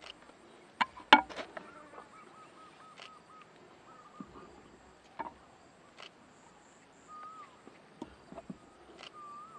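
Scattered clicks and knocks of a spoon and lime pieces against a bowl as a dressing is mixed by hand, the sharpest cluster about a second in. A quick run of high repeated calls sounds behind them.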